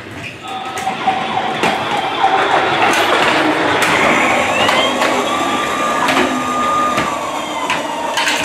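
Battery-operated toy police car running. Its electronic siren wails over the whir of its motor and wheels, with scattered clicks.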